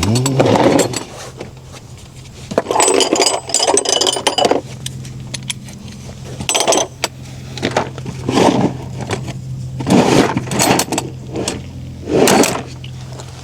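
Metal tools and parts clinking and scraping in a string of short bursts, over a steady low hum.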